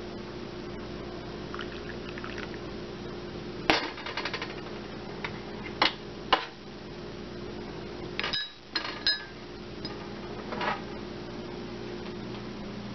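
A glass tea cup being handled on an electric stovetop: several separate clinks and knocks of glass, some with a short ring, over a steady low hum.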